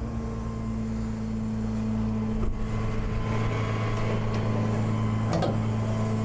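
Tow truck engine running steadily at idle, a low even hum, with two light knocks, about two and a half seconds in and again near the end.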